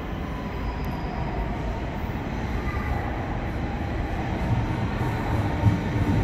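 Berlin S-Bahn electric train approaching along the platform track, its rumble growing gradually louder, with a faint steady whine above it.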